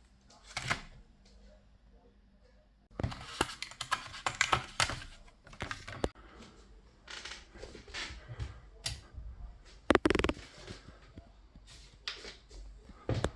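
Irregular clicks and clatter of hard plastic computer parts being handled, starting about three seconds in, with a louder knock about ten seconds in.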